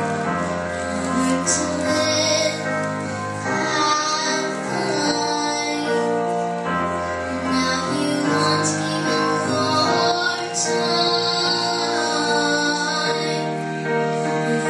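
A ten-year-old girl singing a slow pop ballad solo into a handheld microphone, holding long notes, with instrumental accompaniment underneath.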